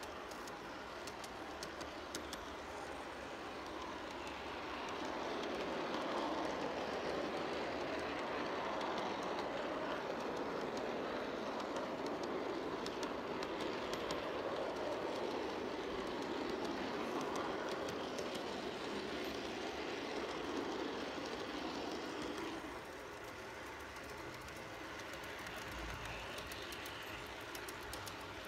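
G-scale model train rolling along garden-railway track with a steady running rattle of wheels on rail. It grows louder about five seconds in and eases off a few seconds before the end.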